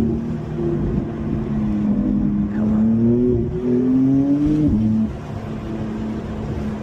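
Car engine heard from inside the cabin, rising in pitch under acceleration. About five seconds in it drops sharply and gets quieter, then holds a steady lower note.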